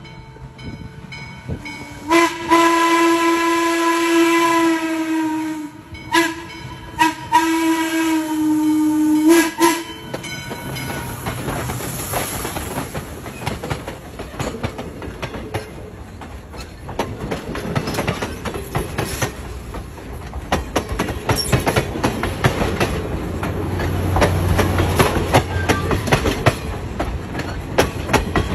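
Steam locomotive blowing its whistle as it approaches, a long blast followed by shorter and longer blasts after a brief break, ending about ten seconds in. Then the engine and its passenger coaches roll past close by, wheels clicking rhythmically over the rail joints over a low rumble that grows near the end.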